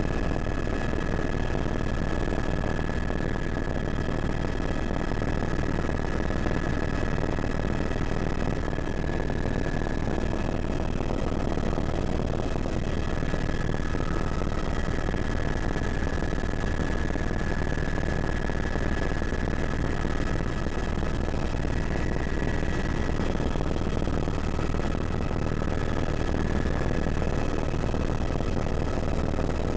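Helicopter engine and rotor noise, running steadily with a few faint high whining tones over it.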